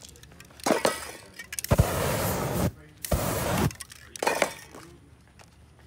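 Aerosol spray-paint can spraying in short blasts: a long hiss of about a second, then one of about half a second, with shorter bursts before and after.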